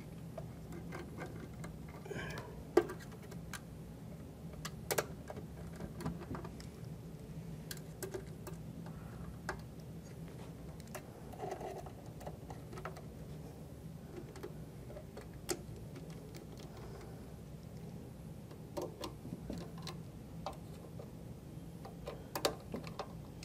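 Light, irregular clicks and ticks of a hex screwdriver turning and seating 2.5 mm Allen screws in the cover of an automatic cable tie dispenser, over a low steady hum.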